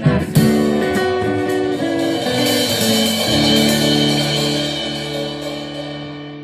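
Guitar ensemble playing traditional Salvadoran folk music: a few sharp strummed strokes, a run of chords, then a final chord held about three seconds in and slowly fading out as the piece ends.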